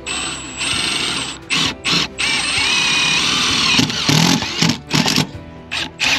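Milwaukee M12 cordless drill driving screws through a steel wall bracket: two long runs, then several short bursts with brief pauses between them.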